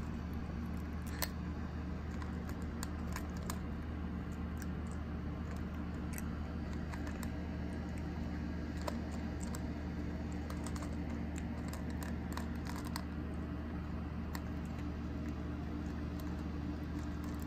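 Young kitten crunching dry kibble from a bowl: irregular, quick crisp clicks, over a steady low hum.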